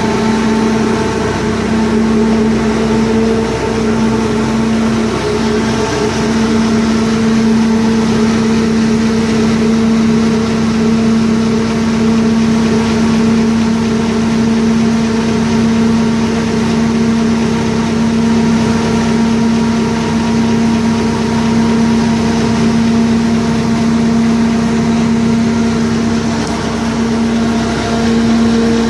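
Scania 113H truck running at a steady speed with its drive wheels turning on the rollers of a tachograph calibration bench. It makes a steady droning hum that does not rise or fall.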